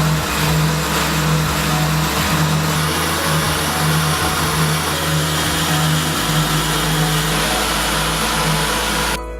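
AIMCO 4100c brake lathe running its automatic fine cut on a brake disc: a steady motor hum under a loud, even hiss from the cut. It starts and stops abruptly.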